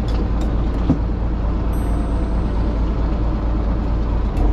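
Fishing boat's engine running with a steady low hum, with a single light knock about a second in.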